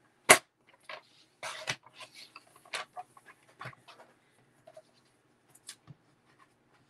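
Paper trimmer in use: a sharp click about a third of a second in, then the swish of the blade slid along its track cutting paper. Scattered small clicks and paper rustles follow.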